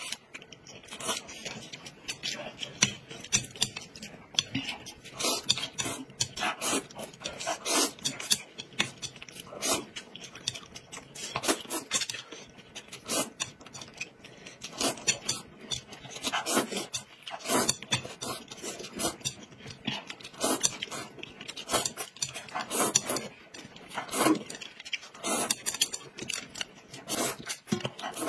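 Close-miked eating: noodles slurped up and chewed, with chopsticks clicking against a plate, as a string of short, sharp sounds at uneven intervals.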